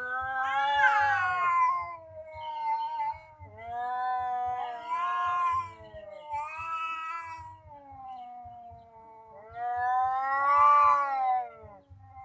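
Domestic cats yowling at each other in a threat standoff: a string of long, drawn-out yowls that waver up and down in pitch, with short breaks between them, the loudest ones at the start and near the end.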